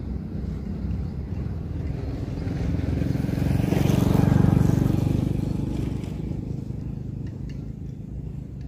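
A motor vehicle passing by: its engine and tyre noise swells over a couple of seconds, peaks around the middle, then fades away.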